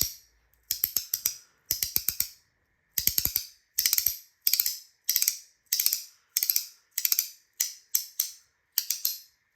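NJT HandPower mini haptic coin being worked by hand: quick runs of sharp, snappy clicks as its magnets snap the halves from one position to the next. The clicks come in clusters of a few, about twice a second.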